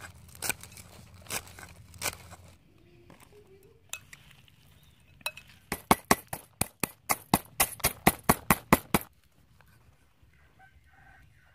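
A kitchen knife chopping greens on a wooden cutting board, a few sharp cuts. Then a wooden pestle pounding chillies, garlic and salt in a stainless steel bowl: a fast run of about twenty clinking knocks, about five a second, for some three seconds.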